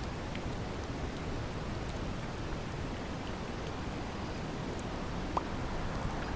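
Steady rain ambience, an even hiss with scattered faint drop ticks, and a brief short chirp about five seconds in.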